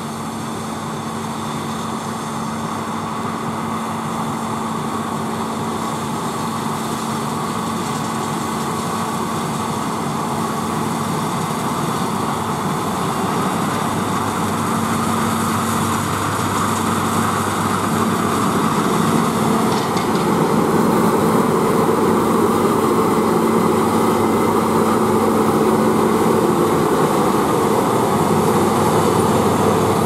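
New Holland CR combine harvester running under load while cutting wheat: a steady engine drone with the rush of the header and threshing machinery. It grows louder as the machine approaches, and is loudest over the last third as it passes close by.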